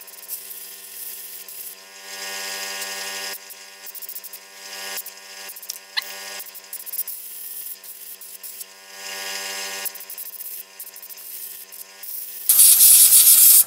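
Airbrush gun blowing compressed air in several hissing bursts to blow small wet model locomotive parts dry, over a steady pitched hum. The longest and loudest blast comes near the end.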